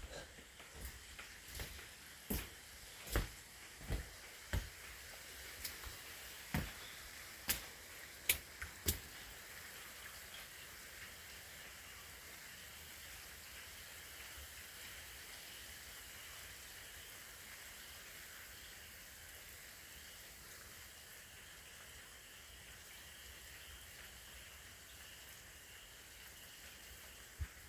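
Rain falling steadily, with a dozen or so sharp taps of drops striking close by over the first several seconds, then only an even hiss of rain.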